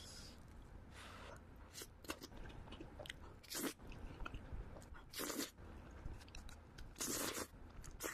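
Slurping and chewing thick cream carbonara noodles: about four loud slurps, each about half a second long, with wet chewing between them.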